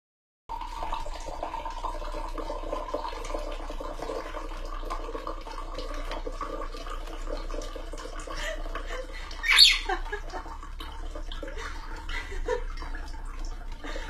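A steady running-water noise with one short, loud parrot squawk about nine and a half seconds in.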